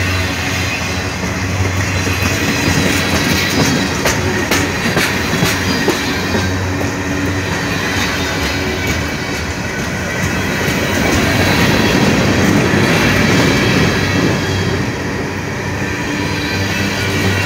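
Freight cars rolling past close by, steel wheels clattering over the rail joints with a faint high wheel squeal, as the manifest train starts to gather speed.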